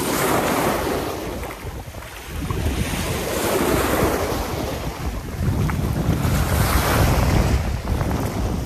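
Small sea waves breaking and washing over a rocky shore, surging three times a few seconds apart, with wind buffeting the microphone in a steady low rumble.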